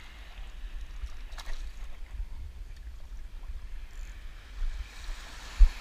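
Wind buffeting the camera's microphone as a rising and falling low rumble, over faint lapping of shallow seawater, with a short low thump near the end.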